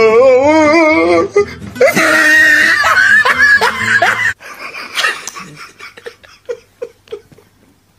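A person laughing hard in a high, wavering voice for about four seconds. The sound then drops suddenly to a much quieter stretch of scattered short clicks and brief sounds.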